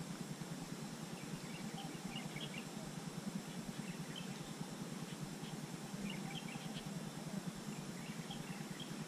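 Steady outdoor background hiss with faint, scattered high chirps of small birds.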